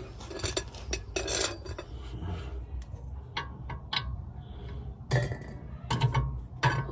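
Metal hand tools clinking and knocking against the brake parts while a seized rear brake bolt is worked on. A scatter of sharp clinks runs through, bunching together near the end.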